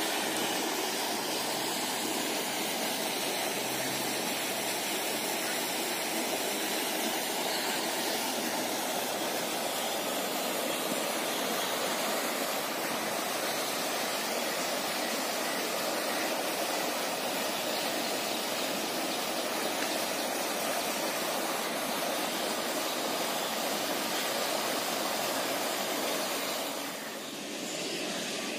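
Steady rushing splash of a lake fountain aerator throwing water up: an even hiss without breaks, dipping briefly near the end.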